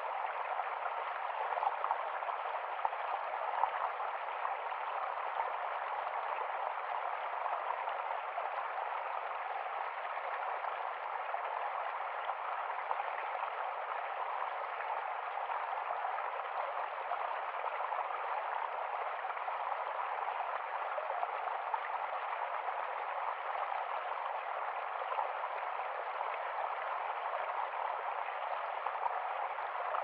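Small stream of water trickling and splashing over rocks into a pool: a steady, even babble with small irregular splashes.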